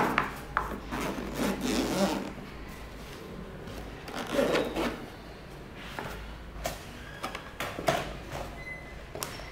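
Handling noise from a zippered hard-shell GoPro camera case: rubbing and rasping as the zipper is worked open, with several short knocks as the case is set against the wooden floor.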